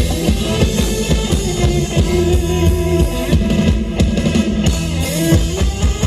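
Loud band music over a Thai rot hae sound-truck system, with a drum kit, heavy bass and guitar playing a steady beat.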